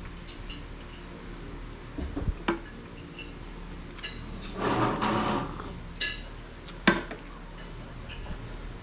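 Spoon and fork clicking and scraping against a plate while eating, in scattered sharp clinks, with a louder scraping stretch about halfway through.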